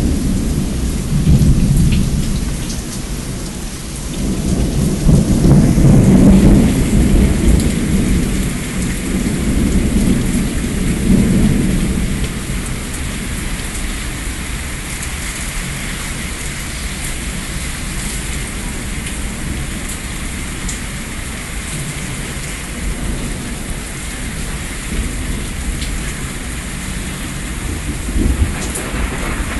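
Thunderstorm with heavy, steady rain. Thunder rumbles in several long rolls during the first dozen seconds, then fades to faint rumbles under the hiss of the rain.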